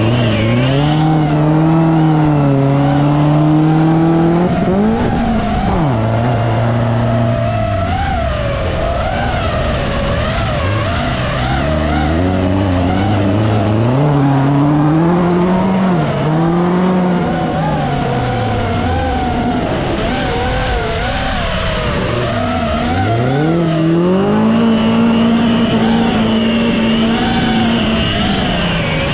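Autocross race car engine revving hard, its pitch climbing and then dropping sharply again and again through gear changes and lifts for corners.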